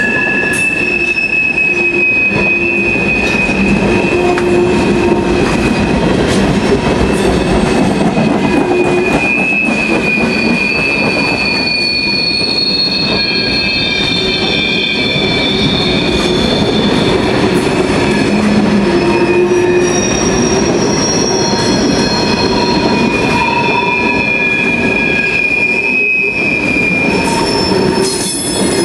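A freight train of Tropicana insulated boxcars rolls steadily past close by, its steel wheels squealing in high held tones that drift slightly in pitch and come and go over a continuous rumble and clatter.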